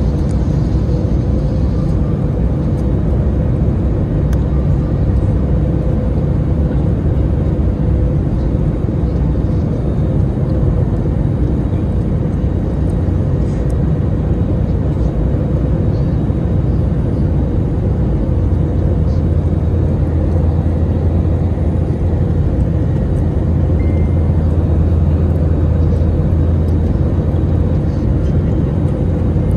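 Cabin noise of an Airbus A321neo on final approach, heard at a window seat by the wing: a steady low rumble of its Pratt & Whitney geared-turbofan engines and rushing air, with a faint steady hum. The low rumble grows a little stronger about two-thirds of the way through.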